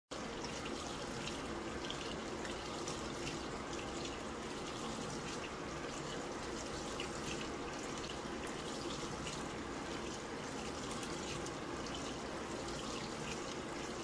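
LG Mega Capacity top-load washing machine filling: water pouring from the fill outlet at the back of the tub and splashing onto a bean bag chair. It is a steady splashing with small drips.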